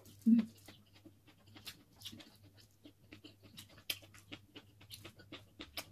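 Close-up eating sounds: chewing with wet mouth clicks and lip-smacking, with one short low thump about a third of a second in, over a faint steady low hum.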